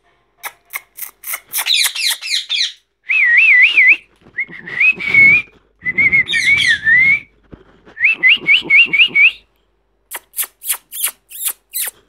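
Young rose-ringed (Indian ringneck) parakeets calling: a run of sharp, quick chirps, then warbling whistles and a quick series of short rising whistles, and more rapid chirps near the end.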